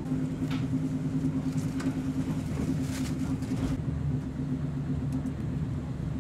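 Running noise of a passenger train heard from inside the carriage: a steady low hum with two steady tones and a few faint clicks.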